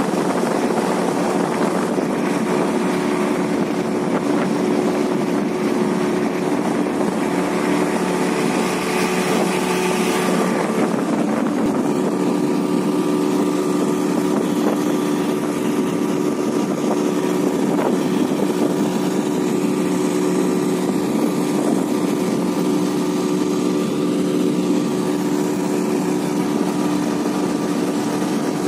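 Small boat's outboard motor running at a steady cruising speed as the boat travels, its pitch and loudness holding even throughout.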